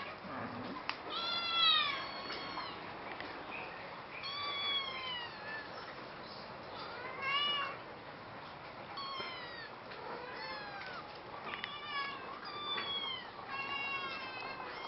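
A cat meowing over and over, about ten separate rising-and-falling meows with short gaps between them.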